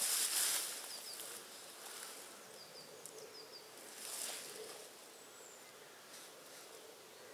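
Woodland ambience: small birds giving short, quick chirps and a brief high whistle, with two bursts of rustling, one at the start and one about four seconds in.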